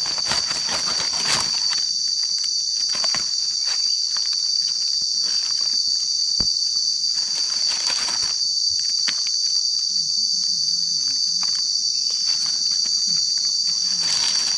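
Steady, high-pitched insect chorus buzzing without a break, with scattered short rustles and clicks over it.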